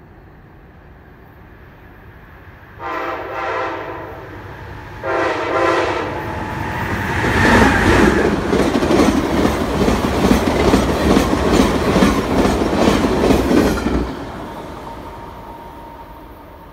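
Amtrak Cascades Talgo passenger train sounding two blasts of its locomotive horn, the first a little longer, then passing at speed with a rapid clickety-clack of wheels over the rail joints. The rumble fades quickly once the train has gone by.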